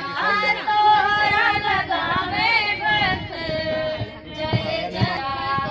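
A woman singing a melody unaccompanied, holding long notes with a wavering pitch. Two short low thumps near the end.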